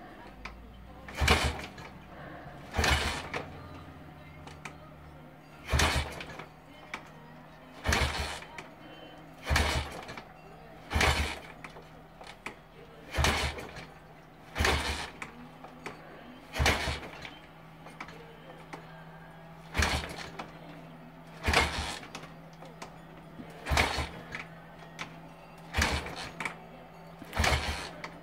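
Victoria V35 Bergmeister's 350 cc V-twin being kicked over again and again: a sharp kickstarter stroke with the engine turning over about every one and a half to two seconds, never catching. A faint steady low hum runs underneath.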